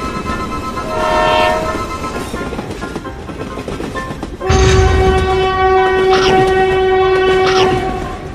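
Train horns: a short blast about a second in, then a long, loud horn sounding from about halfway through for roughly three seconds over the low rumble of a passing train. Fainter repeating bell-like ringing sounds underneath throughout.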